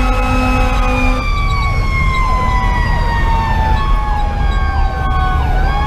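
Fire engine's Federal Q2B mechanical siren in a long, slow falling wail that winds back up near the end, over the steady low rumble of the truck's Detroit Series 60 diesel heard from inside the cab. A steady low horn note cuts off about a second in.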